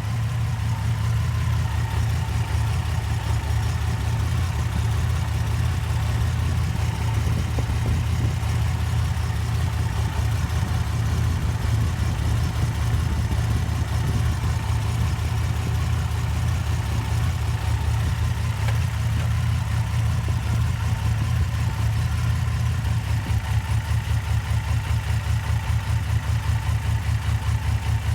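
Car engine idling steadily, with a light misfire on the number four cylinder. The idle carries a rapid, even pulse, which becomes more pronounced over the last few seconds.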